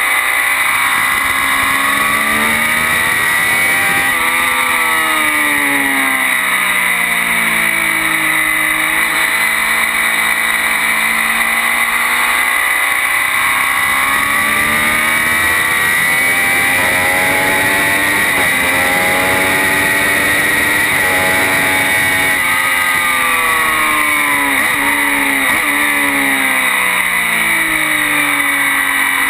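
Triumph Daytona 675 inline three-cylinder sports bike at racing pace, heard close to its exhaust silencer, the revs rising and falling again and again as it accelerates and brakes, over a steady rush of wind.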